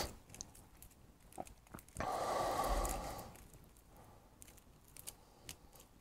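Bare stranded copper wires and braided shielding from a stripped HDMI cable being handled: quiet rustling and small clicks, with one louder noise lasting about a second, starting about two seconds in.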